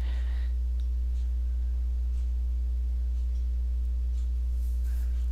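Steady low electrical hum, a mains-type hum in the recording chain, with fainter higher hum tones above it; it holds level without change.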